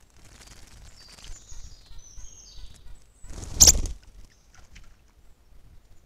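Faint forest birdsong: thin, high whistled notes, with one loud, short noisy burst about three and a half seconds in.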